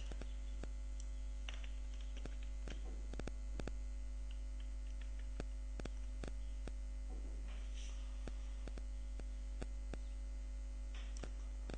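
Steady mains hum on the recording, with a scatter of sharp computer-mouse clicks as shapes are pasted and dragged.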